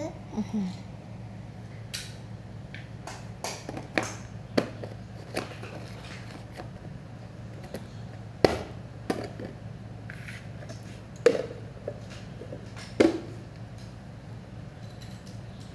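Wooden spoon knocking and scraping against a stainless steel mixing bowl while stirring flour and milk into pizza dough: irregular clicks and knocks, with a few louder clanks in the second half, over a steady low hum.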